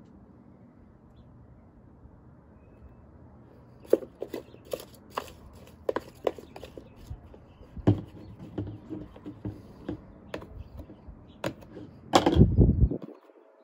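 Hands handling leftover food scraps in a foam takeout container: a run of light clicks and taps, with a louder rumbling knock near the end.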